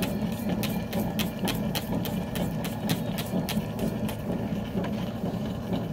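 Lapidary flat lap wheel running wet, its motor humming steadily, with a regular ticking about three times a second that thins out in the second half.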